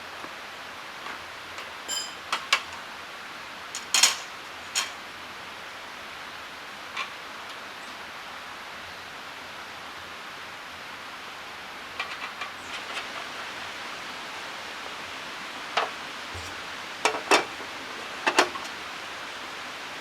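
Scattered knocks and clinks over a steady background hiss, a few at a time with quiet gaps between them, like gear being handled.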